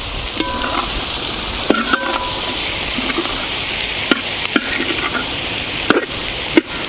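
Chopped onions sizzling in hot ghee in a wide metal pan while a perforated steel spoon stirs them, with a steady frying hiss and repeated clinks and scrapes of the spoon against the pan.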